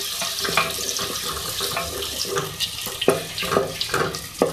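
Sliced onions sizzling in hot oil in a metal pot, stirred with a wooden spatula that scrapes and knocks against the pot several times, the sharpest knocks about three seconds in and near the end.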